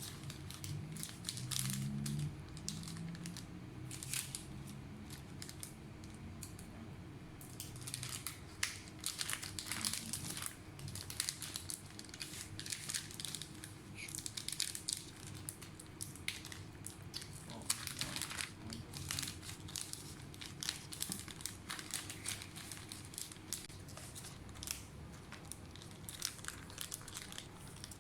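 Crinkling and scattered small clicks of hands working on a laptop and handling its parts, irregular throughout and busier from about eight seconds in.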